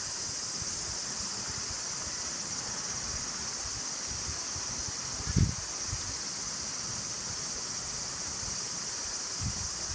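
Steady rushing of a shallow river flowing over a low weir. A brief gust of wind hits the microphone about halfway through.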